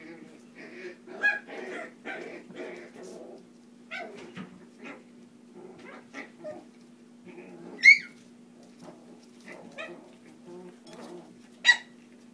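Puppies whimpering and yipping as they wrestle, with many short squeaky cries. Two loud, sharp yelps come about eight seconds in and again near the end.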